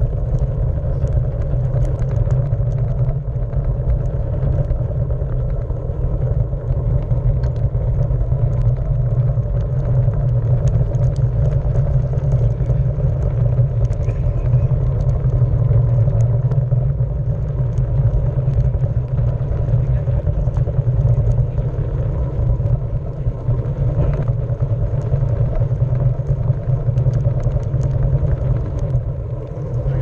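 Onewheel electric board's tyre rolling over wooden pier planks, picked up by a camera mounted on the board: a steady low rumble.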